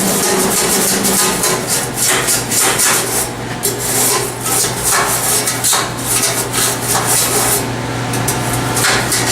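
A scrubbing tool being worked against the inside of an empty commercial deep-fryer vat in repeated strokes, loosening the built-up oil residue and debris, over a steady low hum.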